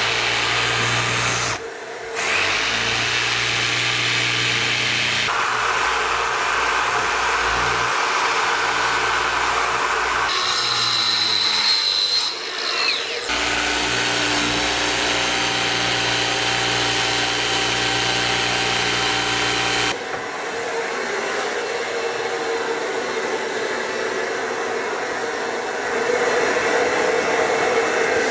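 Milwaukee M18 Fuel cordless jigsaw cutting a circular opening in cement backer board (Hardie board), with a shop vacuum nozzle drawing off the dust at the blade. The steady cutting noise changes abruptly several times.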